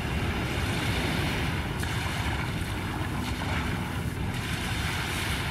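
A steady wash of sea waves and wind, forming the noise layer of an ambient electronic composition. A faint low held tone comes in about halfway through.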